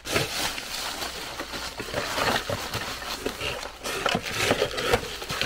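Bubble wrap and plastic packaging crinkling and rustling in the hands, with cardboard shuffling, as a parts kit is unpacked from its box.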